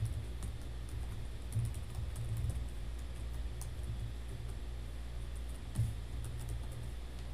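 Typing on a computer keyboard: irregular runs of key clicks, thickest in the first few seconds and again about six seconds in, over a steady low hum.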